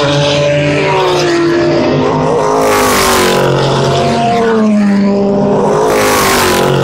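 American Le Mans Series race cars passing at speed, several engines at high revs overlapping, each one's pitch sliding as it goes by. A car rushes past close by about three seconds in, and another just before the end.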